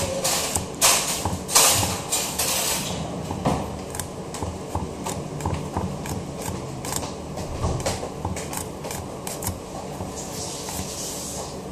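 Handling noise from hands with long fingernails working at a grey object: rustling with sharp crackles in the first few seconds, then quieter scattered clicks and a soft rustle near the end.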